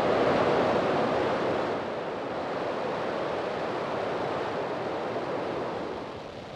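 Falcon 9 first stage's nine Merlin engines thundering at liftoff, a dense, rushing noise. It is loudest in the first couple of seconds and eases off as the rocket climbs away from the pad.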